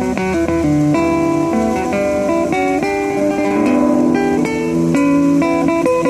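Solo classical guitar played fingerstyle: a run of plucked melody notes ringing over lower bass notes.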